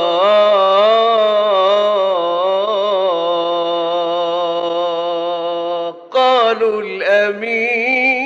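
A man chanting Islamic devotional ibtihal unaccompanied, holding one long ornamented note with a wavering pitch. It breaks off about six seconds in, and a new phrase of shorter sung notes follows.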